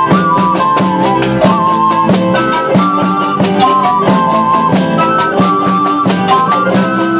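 Live acoustic folk ensemble playing, with guitars strummed in a quick, even rhythm under a held melody line and light hand percussion.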